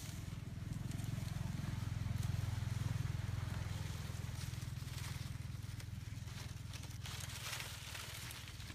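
A low engine rumble swells over the first few seconds and then slowly fades. Dry palm fronds rustle as they are dragged over the ground near the end.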